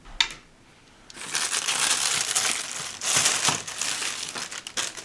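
A short click, then plastic packaging crinkling and crackling continuously as it is handled, from about a second in.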